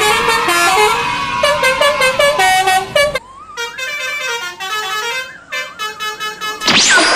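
Multi-tone 'telolet' bus horn playing a tune in stepped notes. It gets quieter about three seconds in, and a quick, sharply rising whistle comes near the end.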